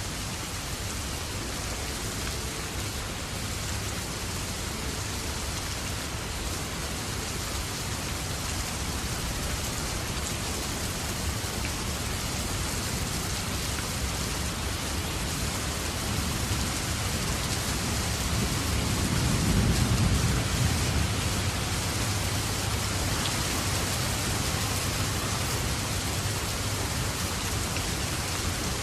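Rain falling steadily, an even hiss of drops. A low rumble swells and fades about two-thirds of the way in.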